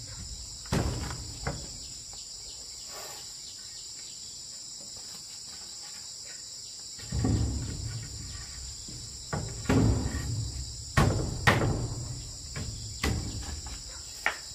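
Wooden boards knocking and scraping as they are set against a timber wall frame: a couple of knocks near the start, then a quiet stretch, then irregular knocks from about halfway through. A steady, high insect chorus of crickets runs underneath.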